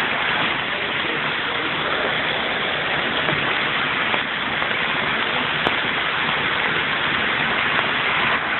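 Heavy rain mixed with hail beating down steadily on the ground and cars, with one sharp tick about five and a half seconds in.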